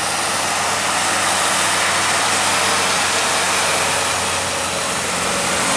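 Road traffic in the rain: a vehicle engine runs steadily with a low hum under a wide, even hiss of rain and wet road noise.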